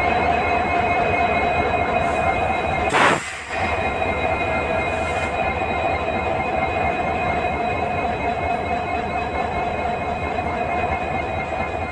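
EMD two-stroke V16 diesel engine of a WDP4D locomotive running at idle, a steady hum with held whining tones over a low rumble. About three seconds in there is a brief burst of hiss and a momentary dip in level.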